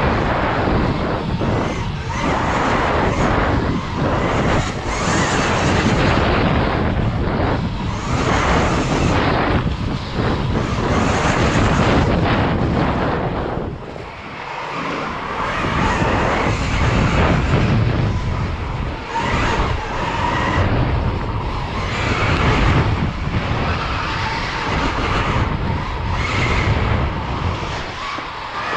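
Riding an electric KTM Freeride dirt bike on a dirt track, heard from a helmet-mounted camera: a steady rush of wind and tyre noise that swells and eases with speed, dipping briefly about halfway through, with a faint electric motor whine coming and going.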